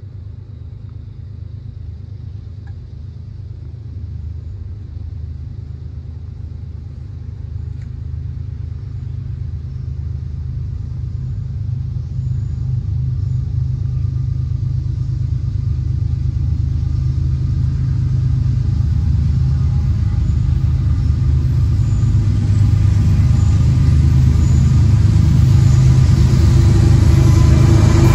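Diesel locomotives of an approaching CSX freight train, a low engine rumble growing steadily louder as the train nears.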